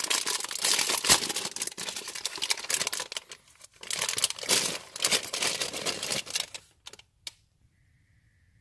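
Plastic film candy bag crinkling and tearing as it is pulled open by hand, then rustling as it is handled, in an uneven string of crackles that stops about seven seconds in.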